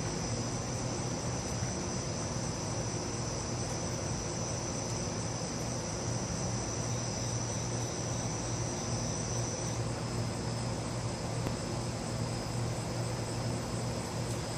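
Insects trilling steadily in one high note, which stops about ten seconds in, over a steady low hum and background noise.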